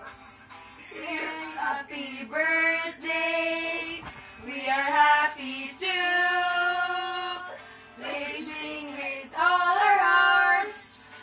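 A small group of women and girls singing a serenade together, in phrases of held notes broken by short pauses.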